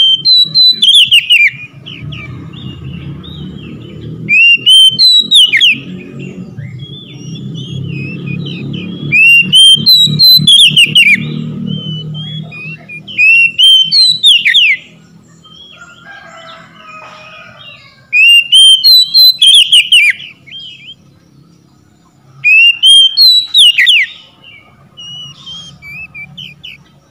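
Oriental magpie-robin singing loud, clear whistled phrases of quick rising and falling notes, in about six bursts a few seconds apart. A low rumble runs underneath through the first half.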